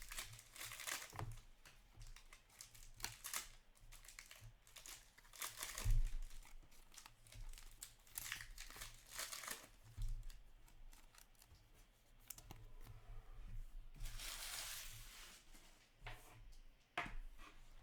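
Foil trading-card pack wrappers being torn open and crinkled by hand: irregular rustling and tearing, with a longer stretch of crinkling about fourteen seconds in.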